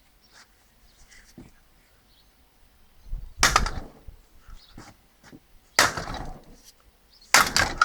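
Three hard hammer blows on a steel D lock whose keyhole has been frozen with sprayed lighter-refill gas, each with a short rattling ring, struck to break the lock open.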